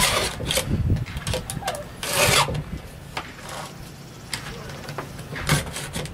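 Hand file-guide sharpener rasping across the steel cutter teeth of a Stihl chainsaw chain in a series of uneven strokes, the longest and loudest about two seconds in, with short clicks between strokes.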